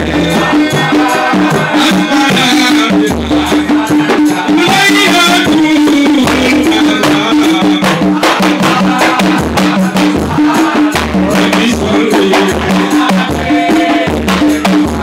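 Large hand-held frame drums beaten in a fast, steady rhythm with deep thuds and sharp slaps, under a lead singer's amplified singing in repeating phrases, with hand-clapping.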